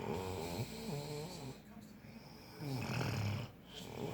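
A sleeper snoring: two long snores with a wavering pitch, the second starting past the halfway mark after a short break.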